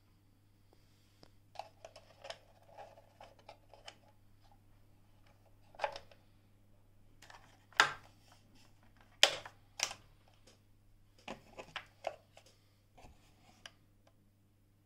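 Plastic clicks and knocks from the top cover and housing of a Pfaff Creative 1469 sewing machine being handled and opened by hand. They come irregularly, the loudest few near the middle.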